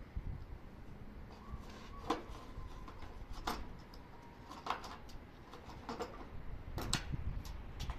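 A handful of sharp, light clicks and taps, roughly one every second or so, from handling during air-conditioner installation work, over a low steady rumble.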